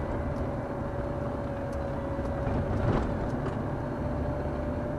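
Car driving on a narrow road, heard from inside the cabin: steady engine and tyre rumble with a thin whine that creeps slightly up in pitch. A single short knock comes about three seconds in.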